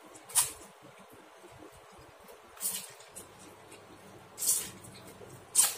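A man slurping instant fried noodles (mie goreng) into his mouth: four short, sharp slurps.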